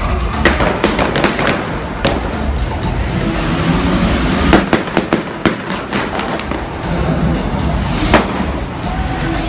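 Stunt-show pyrotechnics: a string of sharp bangs and pops, thickest about halfway through, and a strong blast just after eight seconds as a fireball goes up, over show music.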